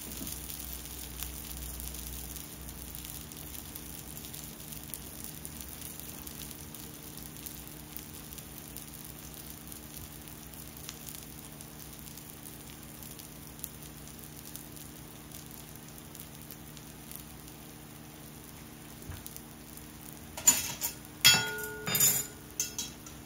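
Oil sizzling steadily in a kuzhi paniyaram pan on the stove, a fine continuous crackle. Near the end, a few loud sharp clinks, some leaving a short ringing tone.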